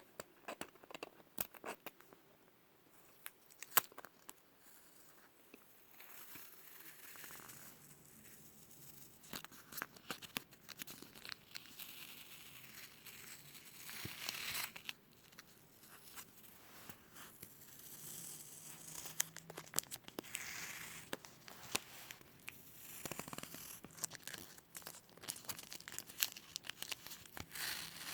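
Adhesive tape being peeled off a surface close to the microphone, with crackling sticky clicks and several longer ripping peels.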